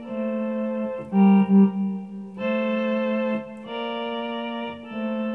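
An electronic keyboard plays a slow melody of about five held notes, each roughly a second long, in an organ-like sustained tone. The left and right hands play the same note an octave apart.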